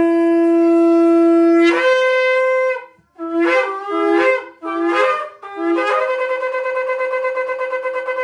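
Shofar blown: a long low note that breaks upward to a higher pitch, then several short blasts, then a long higher note with a fast wavering pulse that cuts off near the end.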